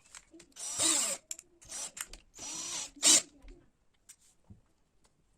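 Ozito power drill run in about three short trigger bursts, the motor speeding up and winding down each time, the last burst ending in a brief louder peak.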